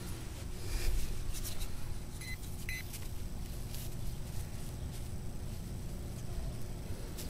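Hand digging in loose, crumbly soil: scraping and rustling of dirt and grass roots over a low rumble. Two short electronic beeps come just after two seconds in.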